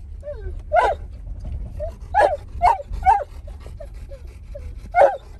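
Large dog whining and yipping in short, high cries, about five loud ones with fainter whimpers between: excited, wanting to play with another dog outside.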